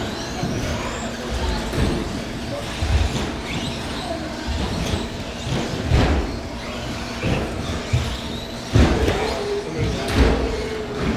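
Electric RC short-course trucks (Traxxas Slash) racing: motors and gears whining, rising and falling in pitch, with several low thumps.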